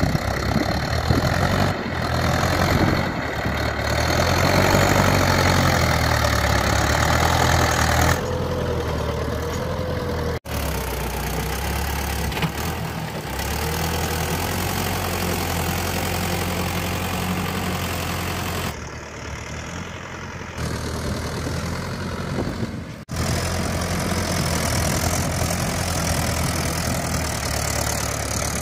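Mahindra 585 DI tractor's four-cylinder diesel engine running steadily while it pulls a land leveller over loose soil. The sound drops out abruptly twice and picks straight up again.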